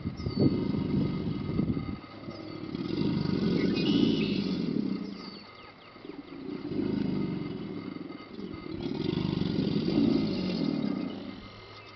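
American alligators bellowing in chorus: deep, rumbling bellows that swell and fade in about four bouts of two seconds or so each, one after another. This is the bellowing of the mating season.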